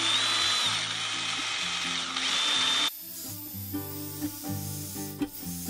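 Cordless drill running, spinning a hook that twists a long strand of wire, its motor whine rising at the start and again about two seconds in. The drill cuts off suddenly about three seconds in, leaving background music with plucked guitar.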